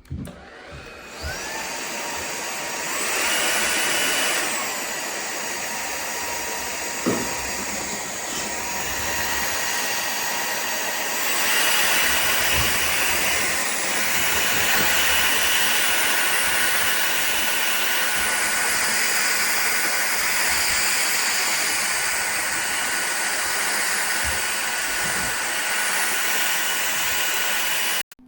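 Powerffy N10 cordless stick vacuum's motor running with a steady high whine over airflow hiss. The whine shifts up and gets louder about three seconds in and again near twelve seconds, and it cuts off abruptly at the end.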